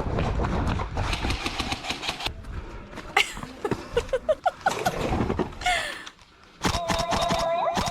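Airsoft field sound from a body cam: rustling movement, then near the end an electric airsoft gun firing a sustained full-auto burst, a steady motor whine with rapid regular clicks.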